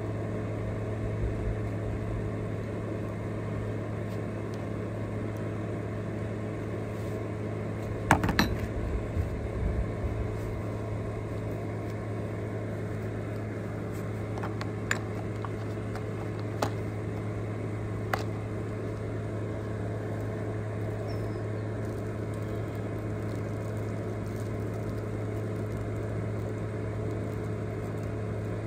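Steady hum of a battery-powered jobsite fan running. About eight seconds in comes a short clatter of clicks, and a few single light clicks follow, as small parts and a plastic O-ring kit box are handled.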